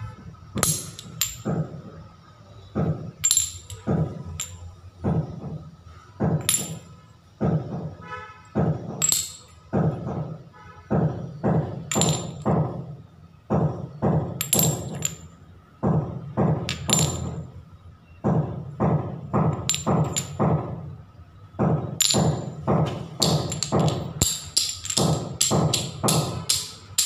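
Background music with a steady beat and jingling, tambourine-like percussion.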